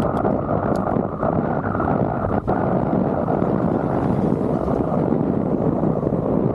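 Steady wind buffeting on the microphone of a bicycle-mounted camera while riding, a dense low rumble with a momentary break about two and a half seconds in.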